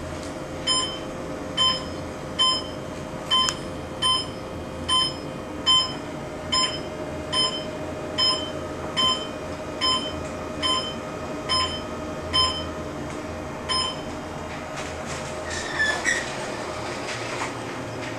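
Elevator car running with a steady motor hum under a short electronic beep that repeats a little more than once a second, stopping about fourteen seconds in. Near the end comes a brief squeal with a few clicks as the car stops and its doors open.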